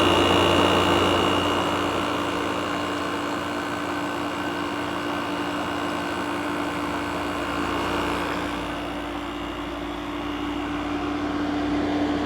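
Midea 5000 BTU window air conditioner running steadily, its fan blowing over a constant hum; it runs pretty quiet and smooth after repair.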